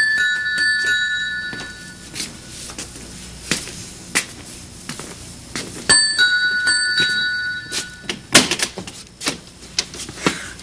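Two-tone ding-dong doorbell chiming twice, a falling pair of notes each time, the second ring about six seconds after the first. Scattered clicks and a sharp knock follow near the end.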